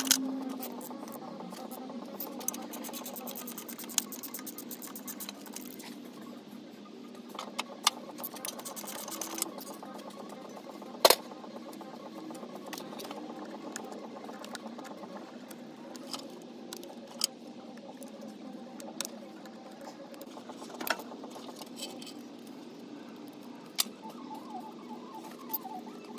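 Socket ratchet clicking rapidly as exhaust manifold bolts are turned out, over a low steady hum. After about six seconds it gives way to scattered metallic clicks, with one sharp knock about eleven seconds in.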